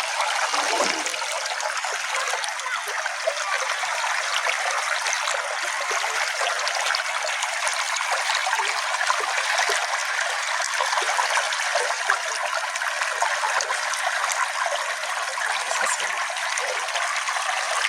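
A small brook flowing steadily: a continuous rushing hiss with many small splashes and trickles throughout.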